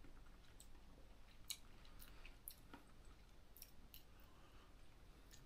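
Near silence with faint, irregular clicks from eating noodles with chopsticks out of a bowl, the clearest about one and a half seconds in.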